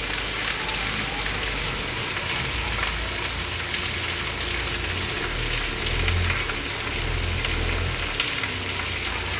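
Heavy rain pouring onto pavement, a steady dense hiss of countless drops, with a low rumble underneath that swells about six seconds in.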